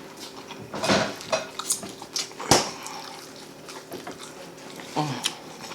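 Plates and utensils clinking and knocking during a meal of ribs: a handful of sharp clicks, the loudest about two and a half seconds in.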